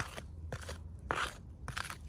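Packaging being handled and opened: a run of short crinkles and crunches, the loudest a little over a second in.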